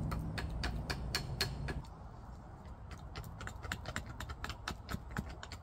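Wood campfire crackling with sharp pops over a low rumble. About two seconds in this gives way to quieter, irregular ticks and scrapes of a knife carving a wooden spoon.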